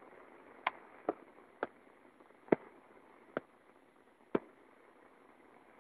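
Raindrops striking close to the microphone in six sharp, uneven ticks over about four seconds, over a steady hiss of rain.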